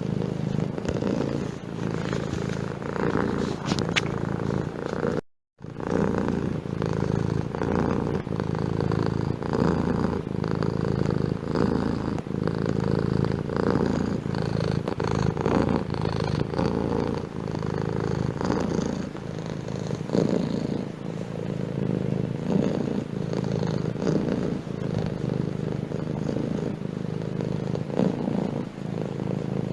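Domestic cat purring steadily, close up, with a brief total cut-out about five seconds in.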